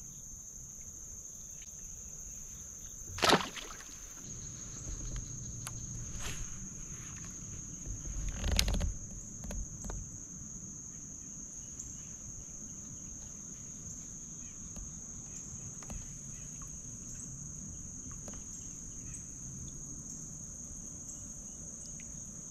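Steady high-pitched insect chorus with no break, with two sharp knocks, about three seconds and eight and a half seconds in.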